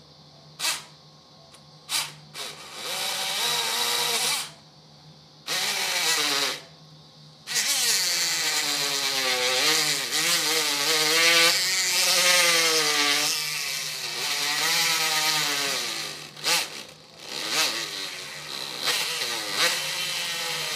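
Powered surgical bone saw cutting through a dog's pelvic bone. It runs in short bursts, then in one long run of about eight seconds whose whine wavers in pitch as the blade bites, then in short bursts again near the end.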